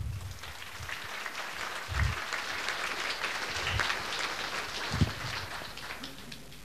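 Audience applauding: a dense patter of many hands clapping that fades away over about five seconds, with a few low thumps underneath.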